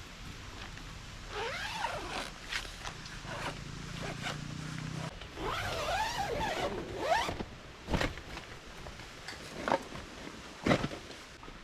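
A zipper pulled in a few quick strokes, twice, each stroke rising and falling in pitch, followed by three sharp knocks near the end.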